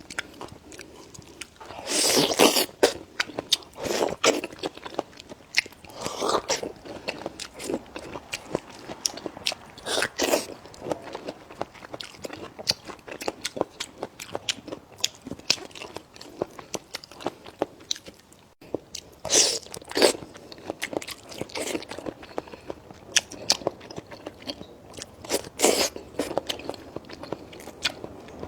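A person eating close to the microphone: chewing and biting with many short, sharp clicks and a few louder crunches.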